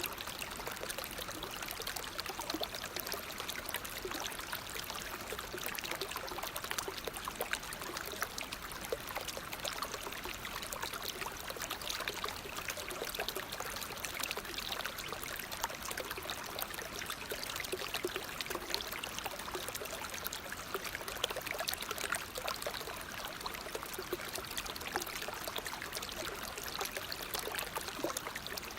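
Waterfall: water falling and splashing in a steady, unbroken rush with fine crackling spatter.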